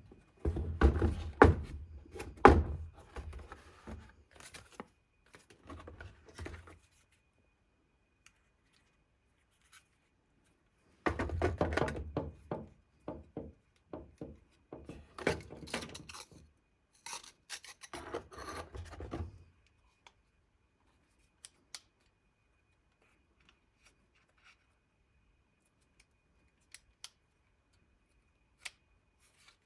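Handling noises: two spells of rubbing, scraping, clicks and knocks, then only a few faint ticks near the end.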